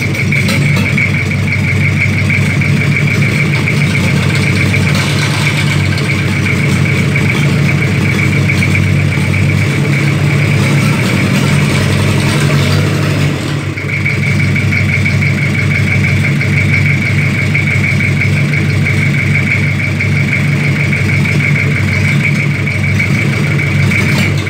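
Toyota 1C four-cylinder diesel engine idling steadily on the floor out of its vehicle, with its intake manifold off. A high steady whine rides over the engine note, dropping out for several seconds in the middle and then returning.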